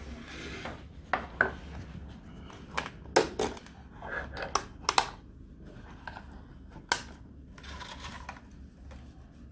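Handling noise from a CleanSpace 2 respirator being assembled: a string of sharp plastic clicks and knocks, with some rubbing, as the silicone half mask and ribbed hoses are fitted to the power unit.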